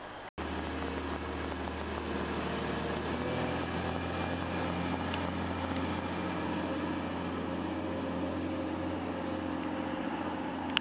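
Class 185 diesel multiple unit pulling away from the platform. Its underfloor diesel engines run under power with a steady low drone, over a faint high whine that rises slightly in pitch.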